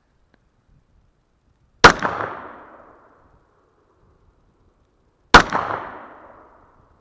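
Two shots from a Glock 29SF pistol in 10mm Auto, about three and a half seconds apart, each followed by an echo that fades over about a second.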